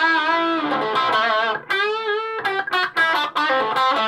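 Electric guitar played through a Donner 5-watt mini amplifier with a driven, overdriven tone. The lead line has sustained notes with wide vibrato, a string bend up and back down about halfway through, and quick picked notes around it.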